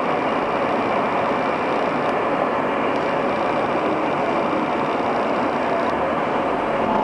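Steady interior running noise of an 81-760/761 'Oka' metro train: the rumble and rush of wheels on rail as it runs through the tunnel and pulls into a station near the end.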